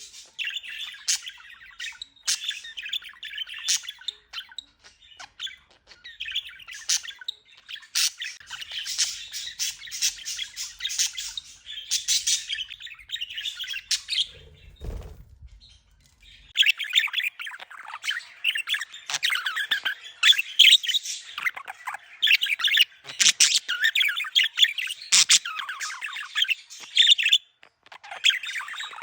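Budgerigars chattering and warbling, a dense run of quick chirps and squawks. About halfway through the chatter stops for a couple of seconds, with a brief low rumble, then comes back louder.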